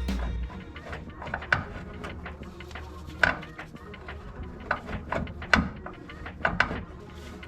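Scattered clicks and knocks of hand tools and metal suspension parts being handled, about one every second, from work on a car's rear coil springs.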